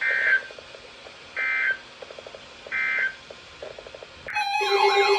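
Emergency Alert System end-of-message data bursts: three short, harsh digital tone bursts about a second and a half apart, marking the end of the weather warning. About four seconds in, an electronic alert tone starts, with steady tones under a repeating wailing siren-like sweep.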